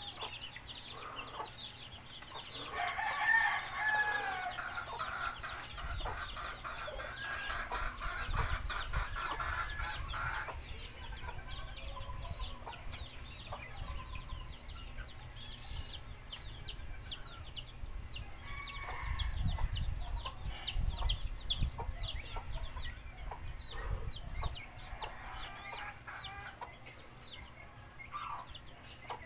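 A rooster crowing, loudest a few seconds in, with chickens clucking. A run of quick, high, repeated chirps follows through the latter part.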